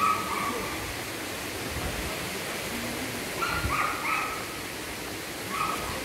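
Short, high animal calls: one at the start, a quick cluster of three or four a little past halfway, and one more near the end, over a steady rushing noise.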